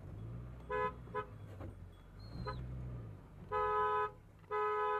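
Maruti Suzuki Gypsy's horn honking to move sheep off the track: two quick toots about a second in, then two longer blasts near the end, over the engine running at low speed.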